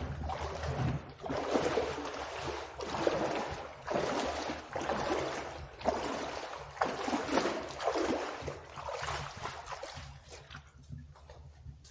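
Footsteps sloshing and splashing through shallow creek water, about one splash a second, thinning out near the end.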